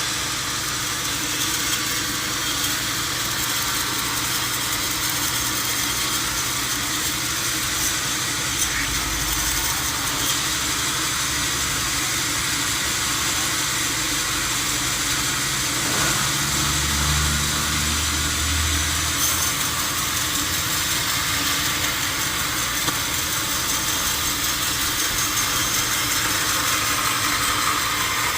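Sawmill machinery running steadily, a constant mechanical drone and hiss, with a brief low rumble about two-thirds of the way through.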